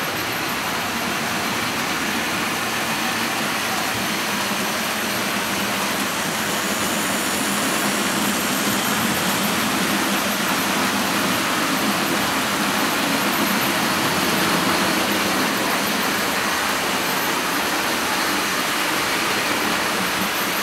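Hornby model 9F locomotive and a long rake of model mineral hopper wagons running along the track: a steady rolling rumble of small metal wheels on rails mixed with motor hum, growing slightly louder through the middle as the train runs close by.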